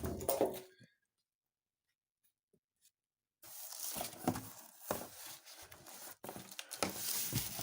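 Packing materials from a microwave's box being handled: irregular rustling, scraping and tearing of styrofoam and wrapping, with a few light knocks. Total silence for the first few seconds, then the handling starts.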